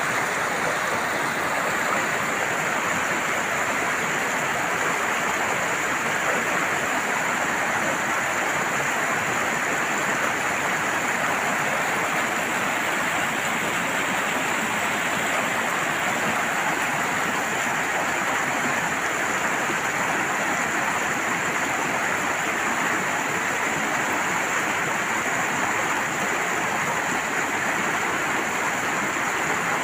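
Shallow mountain stream rushing over rocks, a steady, unbroken sound of running water.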